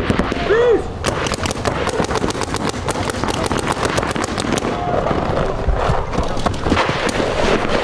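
Paintball markers firing in rapid strings, many sharp pops a second, thickest from about one to five seconds in, with a short shout near the start.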